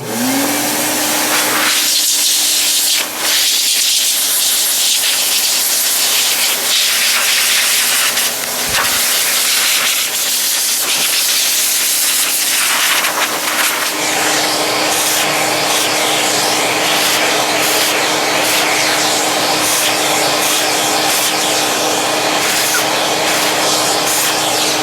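An electric motor spins up at the start and then runs steadily with a loud rush of air as it cleans dust out of a laptop's cooling fans and heat sinks. The rushing sound changes about halfway through, while the motor's hum stays steady.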